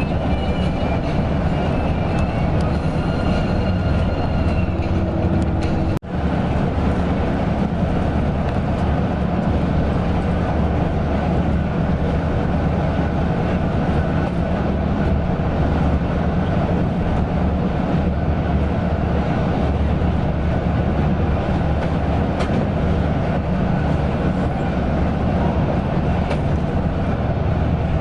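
Coach engine and road noise heard from aboard a moving bus, a steady low drone. The sound drops out for an instant about six seconds in and picks straight up again.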